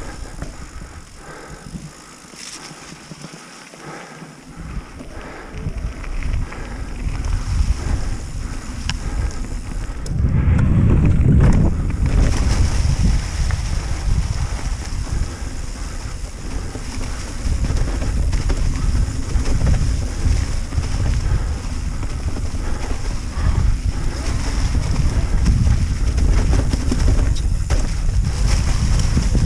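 Wind buffeting the microphone of a camera on a mountain bike being ridden down a trail, mixed with a low rumble from the tyres and the rough ground. It is quieter for the first few seconds, swells about ten seconds in, and stays loud as the bike picks up speed.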